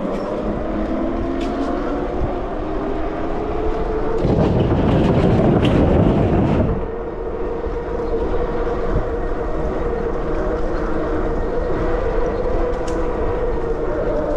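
Sondors Madmods electric bike riding at speed, its motor giving a steady whine over wind and tyre noise. A louder rush of noise swells from about four seconds in and drops off near seven seconds.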